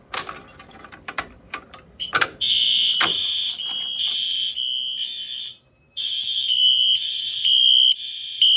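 A Fire-Lite BG-12L manual fire alarm pull station is handled and pulled, making a few sharp clicks and clacks. About two seconds in, the system's fire alarms start sounding a loud, high electronic tone, with a short break about halfway through.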